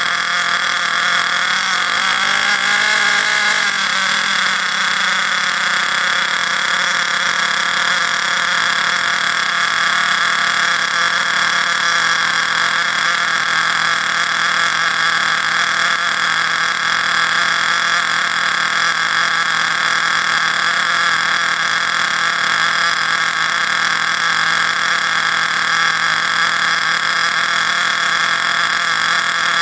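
Ansmann Virus 2.0 buggy's .28 BigBlock nitro engine running steadily while being run in on its first tank of fuel. It is a constant buzz whose pitch wavers briefly about two to four seconds in.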